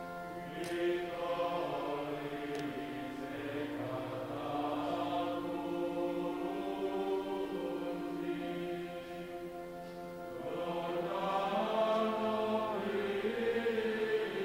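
Choir singing long, held chords, dipping briefly and then swelling louder about ten seconds in.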